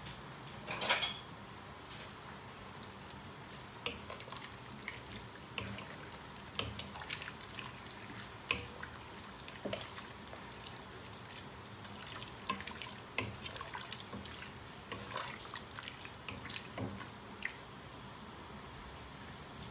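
Wooden spatula stirring sliced bamboo shoots in a pot of simmering broth: soft wet sloshing with scattered light clicks of the spatula against the pot. A louder clatter about a second in.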